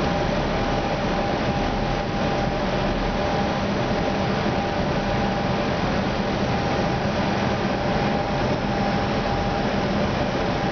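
Steady flight-deck noise of an Airbus A320 on final approach: an even rush of airflow with faint steady hums underneath.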